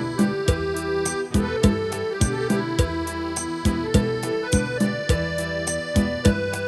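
Instrumental music: a Thai song melody played over a steady, evenly spaced drum beat.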